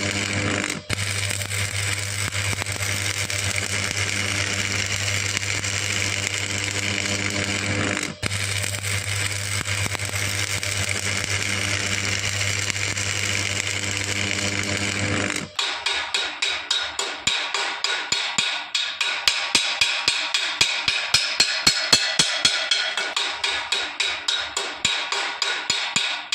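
Stick welding arc crackling over a steady welding-machine hum, cutting out briefly twice. About fifteen seconds in the arc stops and quick metal hammer taps follow, about four a second and growing louder: a chipping hammer knocking slag off the fresh weld.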